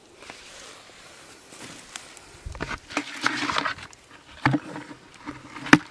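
Hands scuffing and scraping in dry soil, with scattered knocks against a plastic bucket. The loudest is a single sharp knock near the end.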